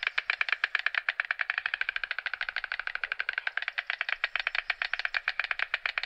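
White stork bill clattering: a fast, steady train of wooden-sounding clacks, about ten a second, running on without a break.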